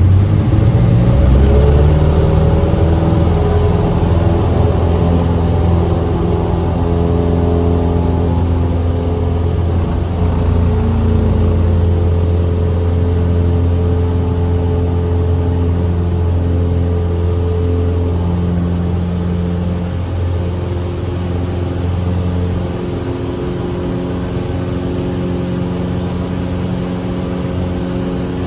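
Small aircraft's piston engine and propeller rising in pitch over the first couple of seconds as power is applied, then running steadily at high power, easing slightly in loudness later on.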